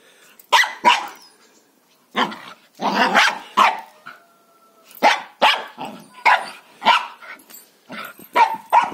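A fluffy white chained dog barking repeatedly at a cat that sits inside its kennel, the barks coming in pairs and short runs of three or four.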